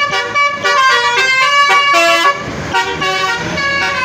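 Bus's multi-tone musical air horn (the Indonesian "telolet" horn) playing a quick tune of changing notes for about two seconds, then holding longer notes, with the bus's engine rumbling underneath.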